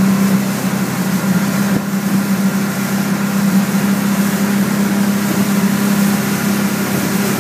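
Yamaha 225 outboard motor running steadily at towing speed, an even drone over the rush of the boat's wake.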